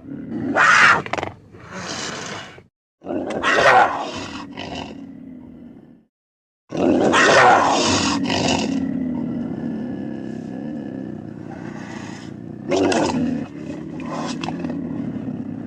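Animated weasel creature's vocal sound effects: a string of separate snarling roars, then, after a short gap of complete silence, a long drawn-out growl with two more sharp outbursts near the end.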